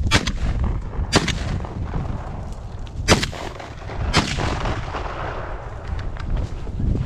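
Shotgun fired four times at running deer: two shots about a second apart, then two more a couple of seconds later, also about a second apart. Wind rumbles on the microphone throughout.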